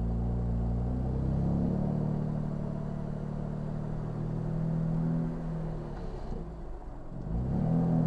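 BMW M2 Competition's twin-turbo straight-six running through a Remus race rear-section exhaust, a low steady drone at light throttle. It falls away about six seconds in as the car slows, then rises again near the end as the car pulls away.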